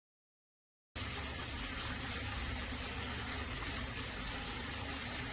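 Water falling steadily from a resin rain-curtain garden waterfall fountain, a constant splashing hiss that starts abruptly about a second in after silence.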